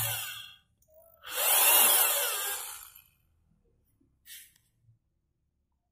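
Electric drill boring a hole into a white laminated wood panel, running in two bursts: one that stops about half a second in, and another from just over a second to about three seconds in.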